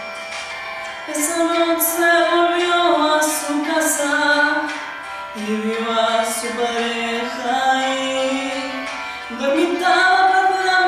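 A woman singing a slow melody unaccompanied, in long held notes that glide up and down in pitch.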